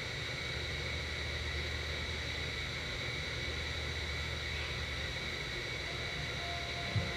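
Steady low rumble with a faint, even high-pitched hum. A single short thump near the end.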